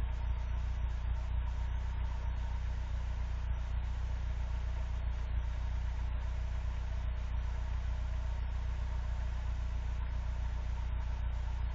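Car engine idling steadily, still cold on an eight-below-zero morning after a hard start.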